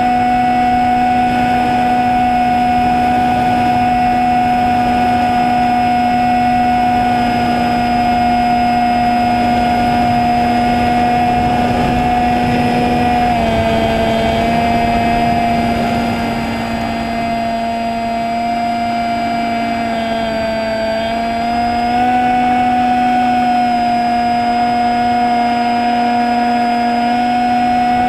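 Electric motor and propeller of a fixed-wing drone running steadily in flight, a loud even whine-hum. Its pitch dips slightly about 13 seconds in and again around 21 seconds, then returns.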